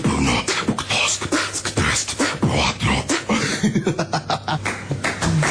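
A person beatboxing, making vocal sound effects: a fast run of mouth clicks and pops mixed with short pitched vocal glides.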